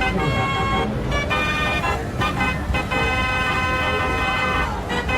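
Fairground ambience: short pitched notes for the first couple of seconds, then a long held horn-like chord from about three seconds in, over a constant low rumble.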